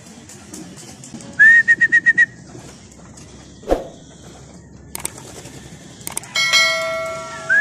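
A quick run of about six high whistled chirps about a second and a half in. Near the end comes the sound effect of a subscribe-button animation: a mouse click, then a bell-like ding that rings on for about a second.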